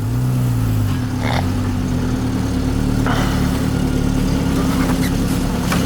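Car engine blipped up and down in revs once or twice near the start, then idling steadily.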